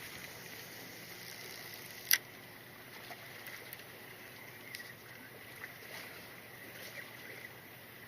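Steady hiss of wind and sea around a fishing boat, with one sharp knock about two seconds in and a few faint ticks.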